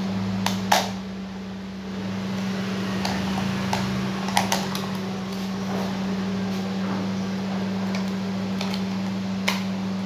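LG MH7049C microwave oven running and heating, a steady low hum, working normally again. A few sharp clicks come about half a second in, near the middle and near the end.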